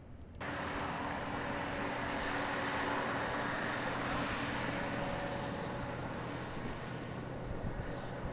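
Wheat-harvest machinery running: a steady mechanical drone with a few held tones, cutting in suddenly about half a second in.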